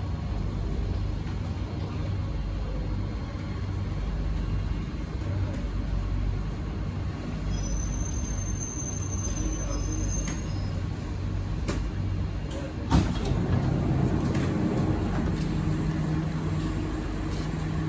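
Singapore MRT train standing at a station: a steady low hum of the train's running equipment, with a faint high thin tone for a couple of seconds near the middle and one sharp knock about two-thirds of the way through, after which a steadier low drone sets in.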